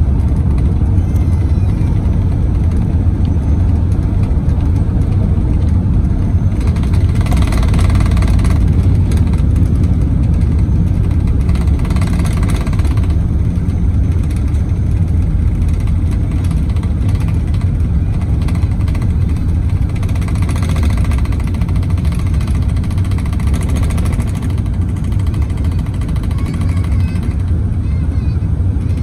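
Cabin noise of an Airbus A380 during takeoff and initial climb: a loud, steady deep rumble of its four Engine Alliance GP7200 turbofans at takeoff power, with a few brief louder rushes of noise. Near the end the cabin shakes as the 22 main wheels, still spinning at high speed, are retracted, which tends to happen on the A380.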